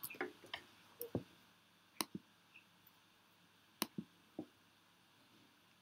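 A few faint, sharp computer-mouse clicks, some in quick pairs, as a pointer works a web page.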